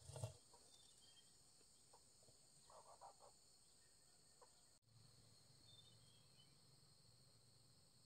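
Near silence: faint, steady, high insect chirring in the forest, with a few brief soft sounds about three seconds in.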